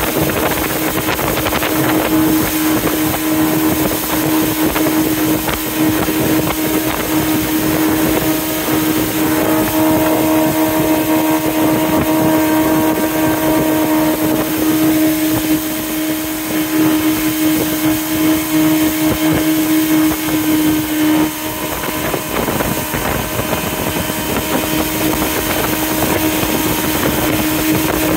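Jet boat running at speed: a steady engine note over the rush of water and wind. The engine note weakens about three-quarters of the way through.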